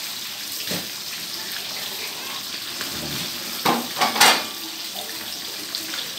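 Fish deep-frying in a wok of hot oil: a steady sizzling hiss. A few louder scrapes and knocks of a metal slotted skimmer against the wok come about four seconds in.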